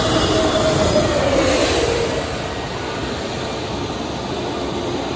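Airbus A320-family jet airliner's engines on landing approach: a steady rush with an engine whine that falls in pitch over the first two seconds, then evens out.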